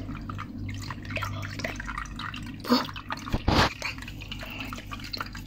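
Water dripping and trickling, many small drips over a low hum, with one brief louder burst of water noise about three and a half seconds in.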